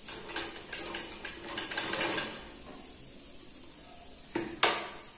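Clicking and small knocks at a sewing machine as fabric is stitched and shifted under the presser foot, irregular and lasting about two seconds, then two sharp knocks about four and a half seconds in.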